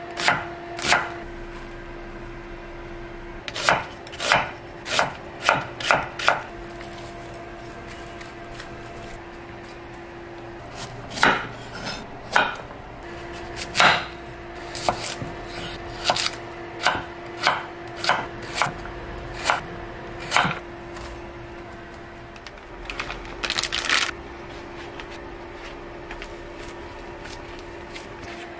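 Kitchen knife chopping onion and slicing carrot on a wooden cutting board: sharp knocks in runs of one or two a second, with pauses between. A brief rustle comes near the end, and a faint steady hum sits underneath.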